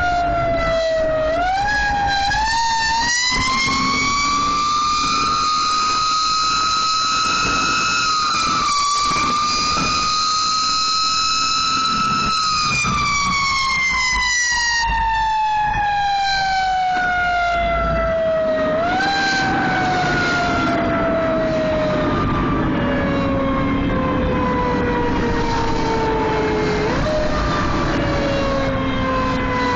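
Fire engine siren heard from aboard the moving vehicle. It winds up early on, holds a high pitch for several seconds, then slowly winds down, getting two short boosts back up partway through. Its engine runs underneath.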